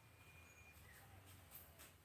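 Near silence: faint room tone with a low hum, and a couple of faint ticks near the end.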